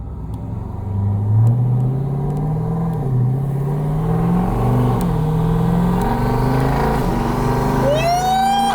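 Twin-turbocharged V8 of a Jeep Grand Cherokee SRT accelerating hard under full throttle, its loud exhaust climbing in pitch and dropping back at each upshift. A rising whistle comes in near the end.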